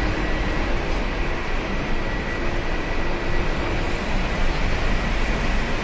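Steady roar of heavy multi-lane road traffic, with a faint high whine running through it.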